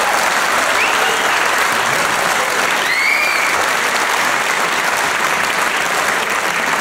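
Audience applauding steadily after a song, with a couple of short high-pitched calls from the crowd about one and three seconds in.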